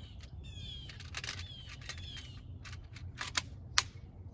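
Sharp plastic clicks of pellets being loaded into the chain magazine of a SIG AR-style CO2 pellet rifle, the two loudest near the end, over a run of short falling chirps.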